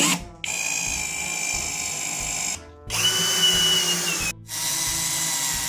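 21 V cordless drill/driver driving wood screws into pine boards: the motor whines in three runs, with two short pauses between them, and its pitch sags slightly near the end of the second run as the screw tightens.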